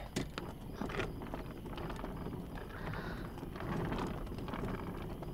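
Small wheels of a rolling suitcase rattling over pavement, a steady rumble dotted with clicks, along with footsteps.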